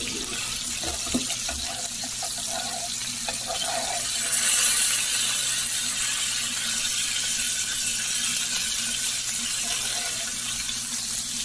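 Rib steaks sizzling in butter in a frying pan: a steady hiss that grows louder about four seconds in. Metal tongs knock lightly against the pan a few times near the start.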